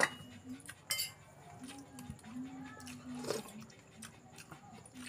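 Spoons clinking and scraping against ceramic bowls and plates while eating, a few scattered clinks with the sharpest about a second in and just after three seconds.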